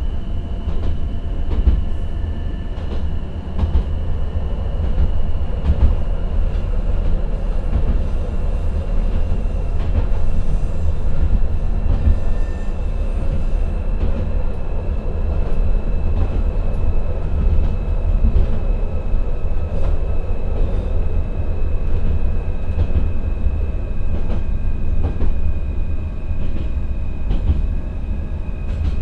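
Interior running noise of the Akechi 10 diesel railcar descending a grade on its holding (retarder) brake: a deep continuous rumble of wheels and running gear with a steady high whine that slowly drops in pitch as the car eases off, and occasional light clicks.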